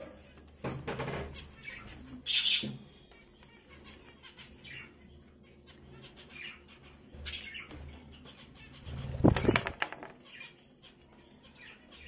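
Wings of small pet birds, a budgerigar among them, fluttering as they flap down to a feeding dish. There are flurries about a second in and a louder one about nine seconds in, with short high chirps in between.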